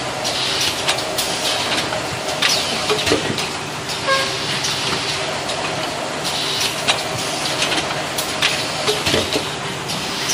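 Automatic single-roll toilet paper packing machine running: a steady mechanical hum with frequent clicks and clatter, and now and then a hiss.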